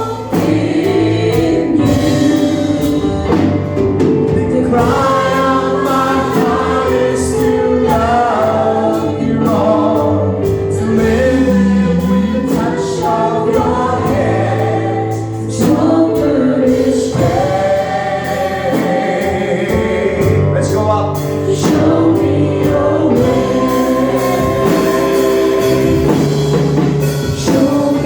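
Background music: a choir or congregation singing a worship song over a band's accompaniment.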